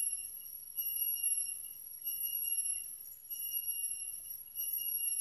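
Insects calling: a high, steady buzzing tone that breaks off briefly and resumes about once a second.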